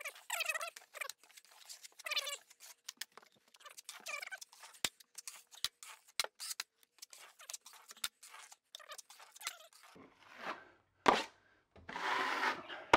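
Drywall knife scraping setting-type joint compound over a wall patch in many short, quick strokes. Near the end there is a sharp knock and a louder scrape.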